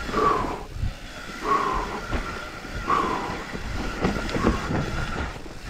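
Mountain bike rattling and clattering over a rough, rocky forest trail, with knocks from the trail. The rider's hard, rhythmic panting comes about every second and a half.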